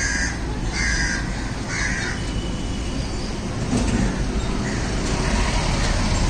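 A crow cawing three times, about a second apart, in the first two seconds, over a steady background noise.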